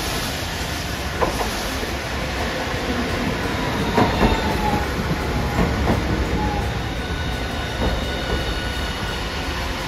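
Hiroshima Electric Railway Green Mover APEX (5200 series) low-floor tram pulling in alongside the platform, its running noise steady, with a series of knocks as the wheels cross the track joints, the loudest about four seconds in.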